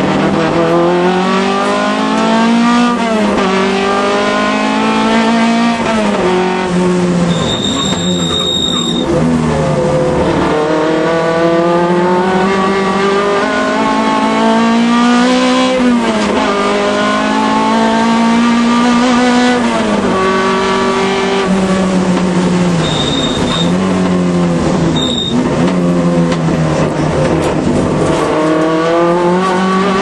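Alfa Romeo race car engine heard on board at racing revs. Its pitch climbs through each gear and drops sharply at every upshift and under braking, over and over. Short tyre squeals come about eight seconds in and again around three quarters of the way through.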